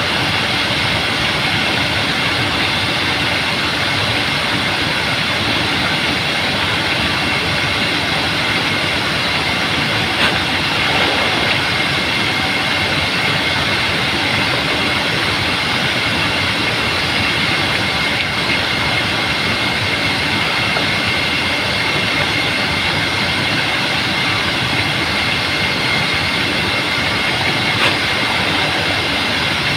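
Steady, loud rush of splashing water and spray, hitting the water surface close to the microphone.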